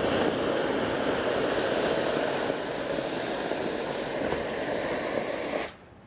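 Steam locomotive venting a strong jet of steam out to the side: a loud, steady rushing hiss that stops abruptly near the end.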